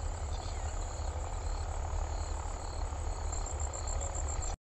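Crickets chirping faintly in the background over steady microphone hiss and a low hum.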